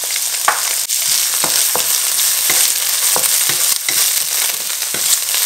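Diced ham, carrot, corn and green peas sizzling in hot oil in a nonstick wok, stirred with a wooden spatula, whose strokes against the pan give short scrapes and knocks about twice a second over the steady sizzle.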